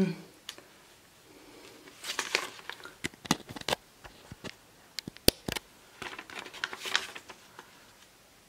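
Paper rustling and crinkling as a sheet is handled, in two short spells with a few sharp clicks between.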